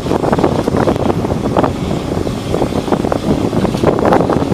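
Steady noise on the working deck of a longline fishing vessel: the ship's engine and machinery running, with wind buffeting the microphone.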